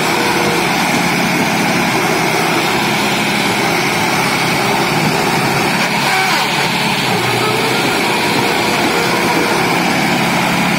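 Sonalika DI 60 tractor's diesel engine running steadily under load as the tractor, bogged in deep mud, churns forward through it.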